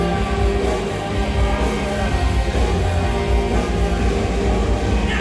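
Live rock band playing a loud instrumental guitar passage between sung lines of a grunge-style song.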